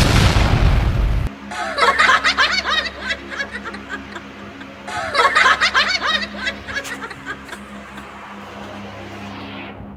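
Stifled snickering laughter in two bouts, about two and five seconds in, over a steady hum. A loud rushing noise fills the first second.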